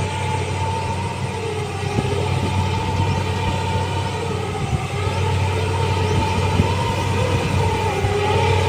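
Rice combine harvester running as it drives through the paddy: a steady engine drone with a slowly wavering whine over it, growing a little louder from about five seconds in as the machine comes closer.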